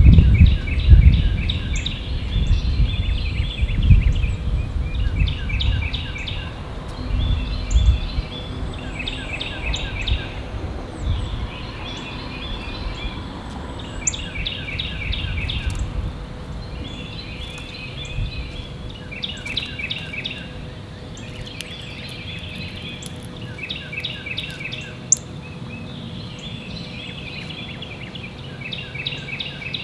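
A songbird singing a short, rapid trill over and over, about once every two seconds. A low rumble, likely wind on the microphone, is the loudest sound in the first several seconds and then dies down.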